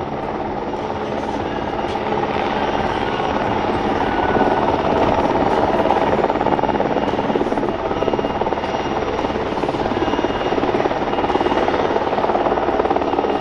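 PZL W-3 Sokol twin-turbine helicopter hovering, its main rotor beating steadily over the engines' whine, a little louder from about four seconds in.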